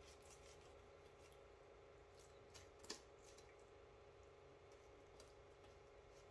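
Near silence with faint clicks and scrapes of a knife cutting raw chicken away from the bone, and one sharper click about three seconds in.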